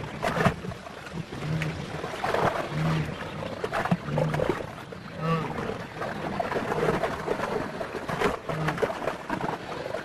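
Lioness growling as she grapples a wildebeest in mud and shallow water, with thrashing and splashing throughout and a louder call about five seconds in.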